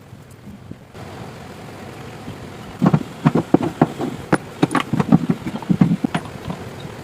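A quick, irregular run of sharp knocks, several a second, starting about three seconds in and stopping near the end, over a steady background hiss.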